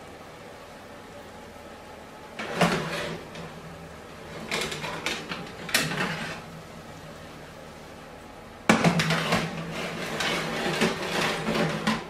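Metal baking trays clattering and scraping on an oven's wire racks as one tray is pulled out and another is slid in. The loudest, longest scrape starts suddenly about two-thirds of the way through and runs almost to the end.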